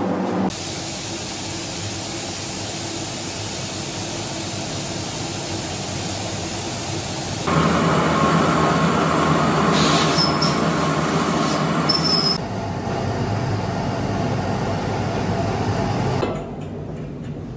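Steady mechanical hum and rumble of workshop noise, which jumps abruptly in level and tone several times. Two short high squeaks sound in the loudest middle stretch.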